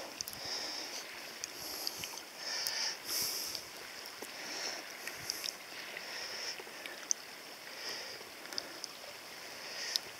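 Shallow river water gurgling and lapping around a hand holding a brown trout under the surface, swelling and easing every second or so, with a few small sharp splashes.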